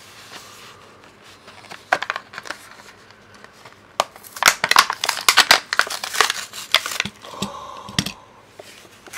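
A Hot Wheels blister card being torn open by hand: the cardboard backing rips and the plastic blister crackles. Scattered crackles come first, then a dense run of sharp ripping from about four to seven seconds in, and a few light knocks near the end.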